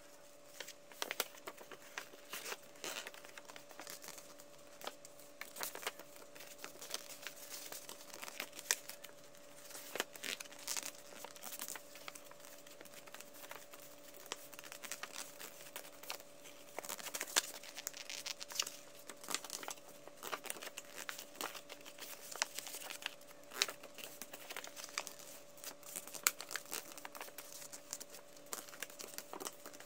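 A sheet of colour paper being handled and folded by hand, with frequent, irregular crisp rustles and crinkles as creases are pressed in.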